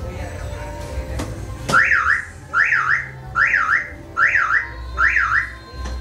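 Car alarm siren sounding: five loud warbling sweeps that rise and fall in pitch, each under a second long. The sweeps start about two seconds in, just after a sharp click.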